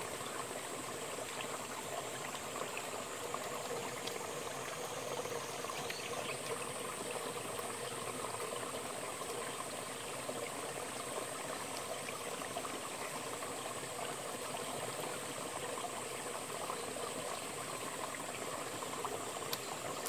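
Mountain stream running steadily over rocks, an even rush of water with a steady high-pitched whine above it.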